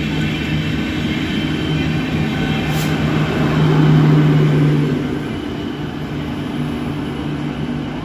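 LHB passenger coaches of an Indian express train passing close by, a steady rolling rumble with a low hum. The hum swells to its loudest about four seconds in as the train's louvred power car goes past, then eases.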